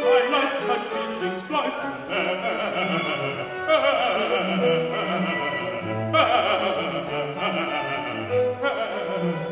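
Male singer performing a baroque aria with a small string ensemble, holding long notes with vibrato, the second starting a little past halfway, while violins play along.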